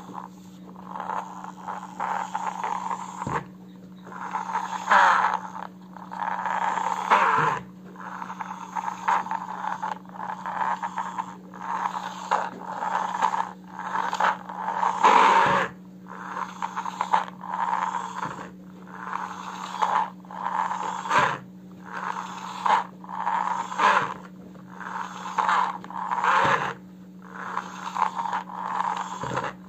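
Plastic toy excavator pushed back and forth by hand over a woven rug, its plastic tracks and wheels scraping and rattling in repeated short strokes about a second long.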